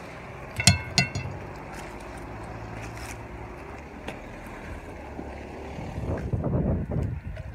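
Two sharp metallic clinks with a short ring, under a second in, as pieces of metal knock together. Wind buffets the microphone from about six seconds in.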